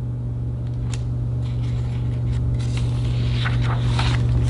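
A steady low hum, with faint rustling of paper from a picture-book page being turned.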